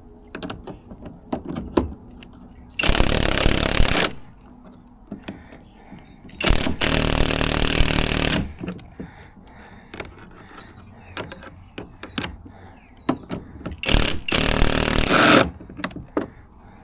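A cordless power driver, fitted with a socket extension, runs in three bursts of one to two seconds each as it tightens a transom mounting bolt down into a plastic kayak hull. Small clicks and knocks of the tool being handled come between the bursts.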